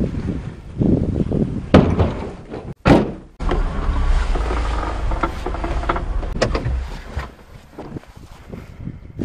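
Firewood logs thud down one after another into the steel bed of a 1992 Daihatsu Hijet mini-truck, three heavy knocks. Then the truck runs with a steady low rumble, heard from inside the cab, which fades near the end.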